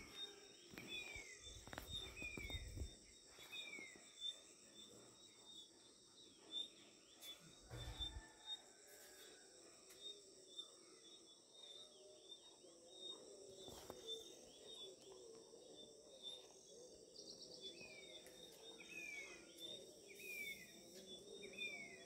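Outdoor ambience: insects chirring steadily, with a bird repeating a short falling note about once a second in a run near the start and again near the end. A couple of brief low rumbles come in the first half.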